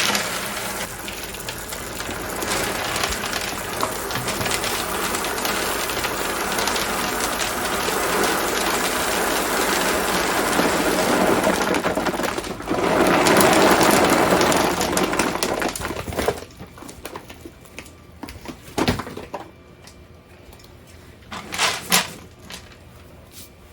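Dry dog food kibble pouring out of its bag into a plastic storage bin, a dense steady rattle of pieces hitting the plastic that swells briefly near the middle. After about 16 seconds the pour stops, leaving only a few scattered clicks of single pieces.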